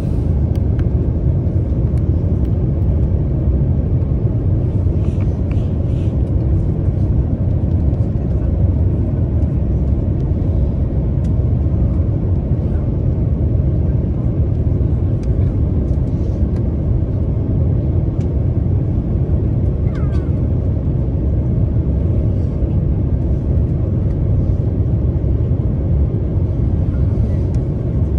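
Steady low roar of jet airliner cabin noise, engines and airflow heard from inside the cabin at a window seat, as the plane descends on approach.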